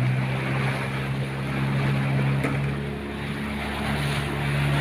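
Wooden fishing boat's inboard engine running steadily under way, a low even hum, with water and wind noise over it.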